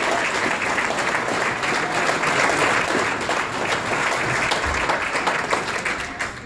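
Audience applauding, steady clapping that dies away near the end.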